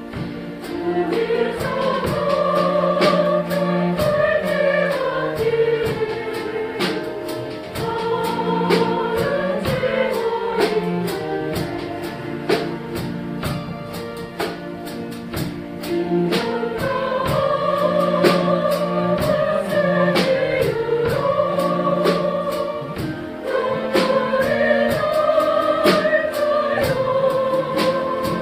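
A chromaharp ensemble (autoharp-style chorded zithers) strumming chords in a steady rhythm while a group sings the slow melody in unison with long held notes. The music eases off briefly about halfway through, then the phrase comes round again.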